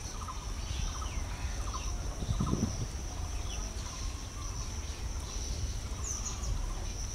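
Farmyard ambience: short, repeated animal calls over a steady high hum, with a brief low sound about two and a half seconds in.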